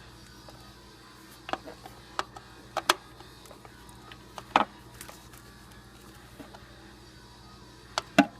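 Scattered sharp clicks and taps of a hand tool on the distributor cap screws as they are tightened down, about seven irregular knocks over a faint steady hum.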